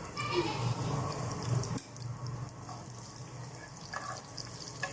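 Chopped onion sizzling in hot olive oil in a pan, an even hiss, over a steady low hum, with a single click about two seconds in.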